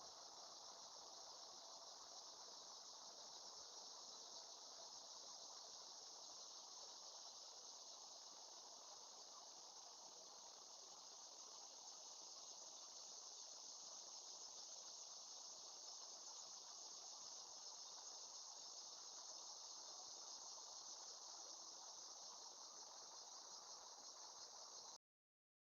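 Faint, steady chorus of insects such as crickets, a continuous high-pitched drone with no breaks in its rhythm. It drops out for about a second near the end.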